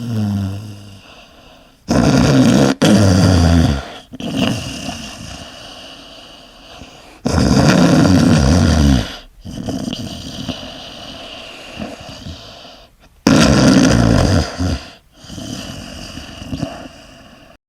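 A person snoring loudly: three heavy snores about five to six seconds apart, with quieter breaths between them.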